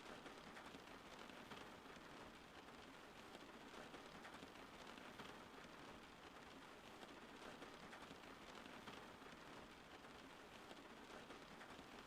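Steady rain falling, a faint, even hiss of many fine drops.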